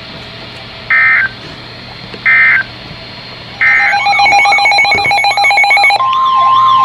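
Three short bursts of warbling EAS digital data tones about a second apart: the end-of-message signal closing a weather radio warning. From about four seconds in, an electronic siren warbles up and down about twice a second over rapidly pulsing tones. Near the end a steady high alert tone joins the siren.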